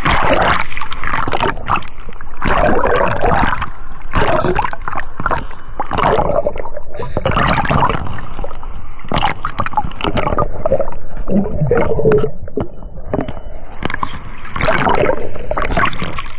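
Water gurgling and splashing in irregular surges, about one every second or two.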